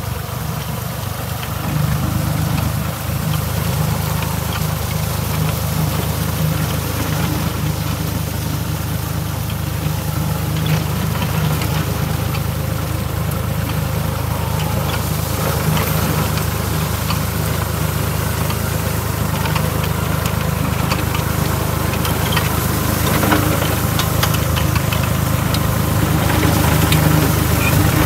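Massey Ferguson tractor's diesel engine running steadily under load while its PTO-driven inter-row rotovator tills the soil, with scattered light ticks over the steady drone.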